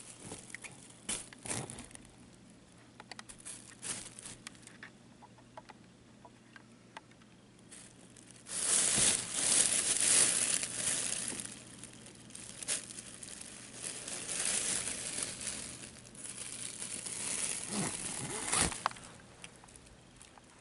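Crinkly cat play tunnel rustling and crinkling as a cat moves about inside it. Light scattered rustles at first, then long stretches of loud crinkling from about halfway in.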